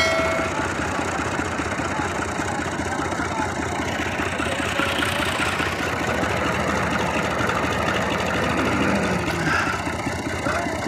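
Tractor diesel engine (a 480-model tractor) running steadily with a rapid low chugging beat while hitched to a soil-loaded trolley in loose sand. A brief ringing chime sounds right at the start.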